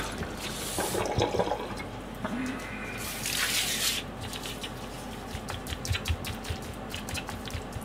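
Bare hands working pieces of raw fish in a foam tray: soft wet squishing with many small sticky clicks. A brief hissing rush is heard about three seconds in.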